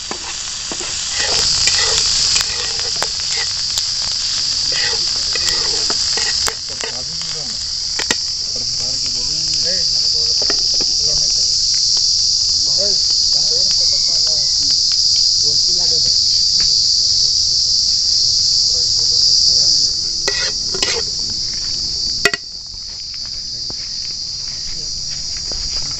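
Loud, steady, high-pitched insect chorus that runs without a break, with a few sharp clicks and scrapes of a metal spatula on a frying pan.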